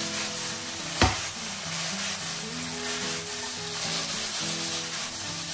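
Diced pork sizzling as it fries in a non-stick pan, with a single sharp knock about a second in.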